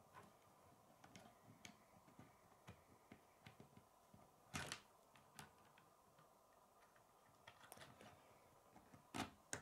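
Quiet clicks and taps of plastic K'nex rods and connectors being handled and pressed together on a wooden table, with two louder ones about four and a half seconds in and near the end.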